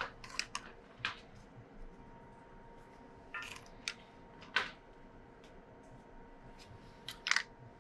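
Hollow plastic letter shapes clicking and clacking as they are set down one at a time on the steel cutter discs of a shredder that is not running: a series of light, sharp clicks at irregular intervals, the loudest near the end.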